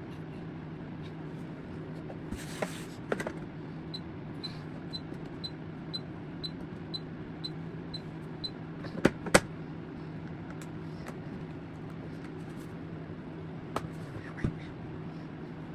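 Nail vacuum (dust collector) fan motor running steadily with a low hum. About four seconds in comes a run of short high beeps, about two a second, and a few sharp clicks are scattered through, the loudest a pair about nine seconds in.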